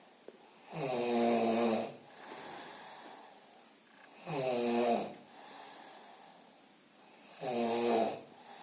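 A man snoring in his sleep: three long, pitched snores about three seconds apart, with quieter breathing between them.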